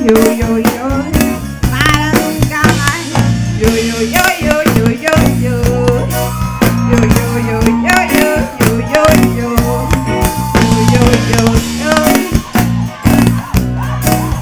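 Live band playing a forró song, with a drum kit keeping a steady beat and guitar, while a woman sings into a microphone.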